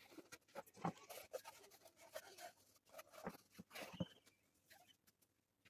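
Faint, scattered light knocks and rustling from wooden panels and a small pine box being handled and set down on a board.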